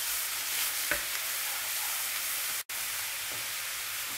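Chopped onion and grated carrot sizzling in hot oil in a non-stick frying pan, stirred at first with a wooden spoon. A steady frying hiss, broken by a very short silent gap a little past halfway.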